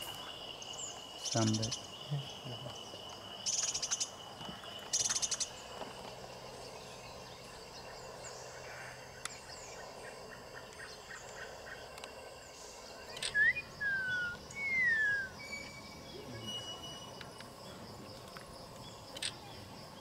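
Tropical rainforest ambience: a steady high-pitched insect drone, with a lower steady tone that stops about twelve seconds in. Three short buzzy rasps come in the first five seconds. A few clear bird whistles sliding in pitch come about two-thirds of the way through and are the loudest sounds.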